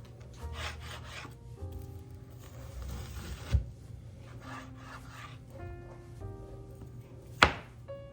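Knife slicing raw chicken breast on a wooden cutting board in a series of short sawing strokes, with two sharp knocks of the blade against the board, one about three and a half seconds in and a louder one near the end.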